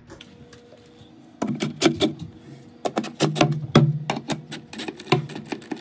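Cordless drill-driver driving a metal screw-in fastener into a particleboard cabinet panel. It gives a series of sharp clicks, starting about a second and a half in, with short runs of the motor between them.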